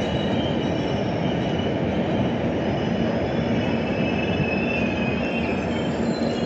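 Train running on the rails: a steady, even rumble with a low hum, and faint, wavering high-pitched wheel squeal above it.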